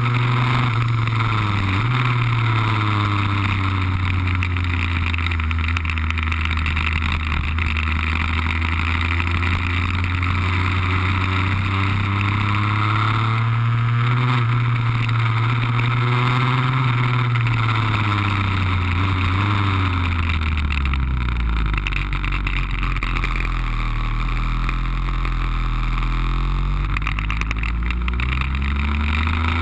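Lambretta scooter with an RB20 two-stroke engine at speed, heard from on board: the engine note climbs slowly through the first half, falls away from about seventeen seconds in to a low, steady note, and rises again near the end.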